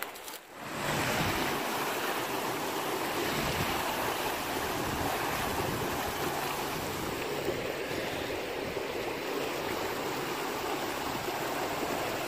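A creek in flood, swollen and muddy from heavy rain: fast water rushing and churning, a steady noise that rises in after a brief quieter moment at the start.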